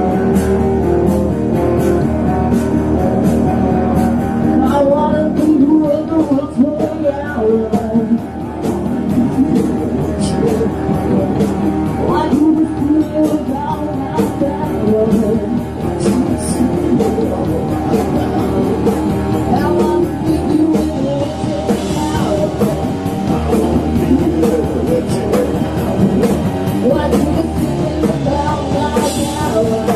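A live rock band playing, with electric guitar and drums and a singer's voice over them from a few seconds in.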